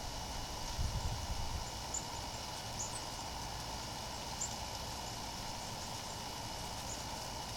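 Backyard outdoor ambience: small birds give brief high chirps every second or two over a steady hiss and a continuous high insect-like drone, with a low rumble about a second in.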